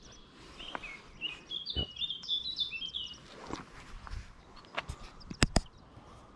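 A bird chick's begging calls as a parent feeds it: a quick string of short, high chirps lasting about two seconds, followed near the end by a few sharp clicks.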